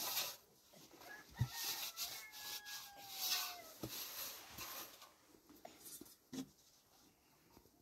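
Hands squeezing and scraping bread dough in a large metal basin: soft, irregular rubbing and scraping. About a second in, a rooster crows faintly in one long call that falls at its end.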